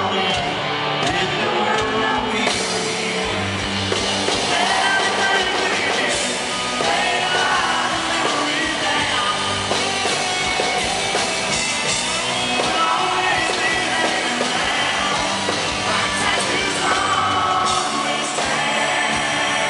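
Live country-rock band playing loud through the concert PA, with a male lead vocal singing over electric guitar.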